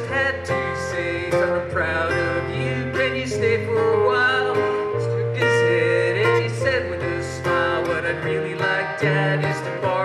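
A live band playing: strummed acoustic guitar over a drum kit and keyboard, with sustained low bass notes underneath.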